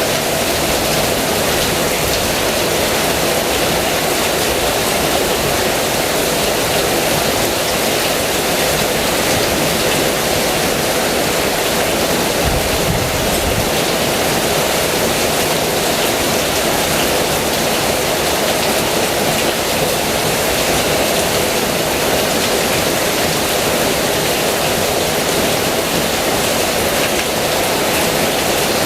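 Heavy rain pouring steadily: a dense, even hiss, with a brief deeper swell about twelve seconds in.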